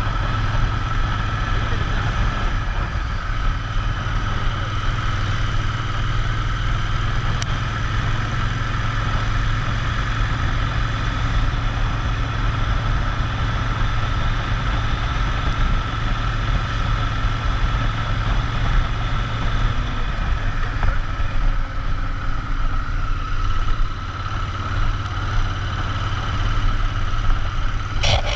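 Royal Enfield Interceptor 650's 648 cc parallel-twin engine running steadily, its pitch and loudness holding even throughout, with a brief sharp click right at the end.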